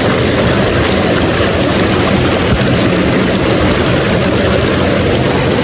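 Fast mountain stream water rushing and splashing over rocks and a log close to the microphone: a loud, steady rush.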